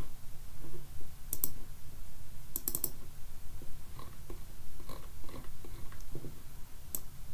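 Computer mouse clicking: a double click about a second and a half in, a quick run of clicks near the three-second mark, a few fainter ticks, then one more click near the end, over a low steady hum.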